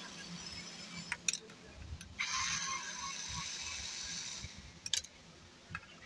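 Electric drill-driver unscrewing the mounting screws of a microwave oven's timer, its motor spinning for about two seconds in the middle, with a few sharp clicks before and after.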